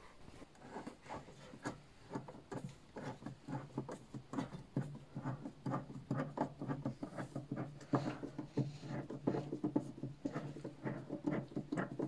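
Hands working on the rubber door boot and parts inside a washing machine: many soft, irregular taps, rubs and rustles, over a faint, steady low hum.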